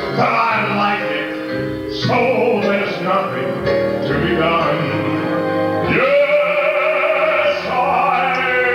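A man singing a show tune into a microphone with instrumental accompaniment, holding a long note for the last few seconds.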